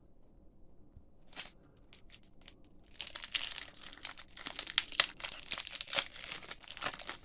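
Foil wrapper of a trading card booster pack crinkling and tearing as it is opened by hand: a few scattered crackles, then dense continuous crackling from about three seconds in.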